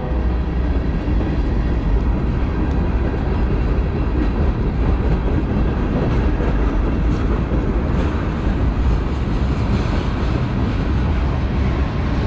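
Norfolk Southern freight train's tank cars rolling past close by: a steady, loud rumble and clatter of steel wheels on the rail.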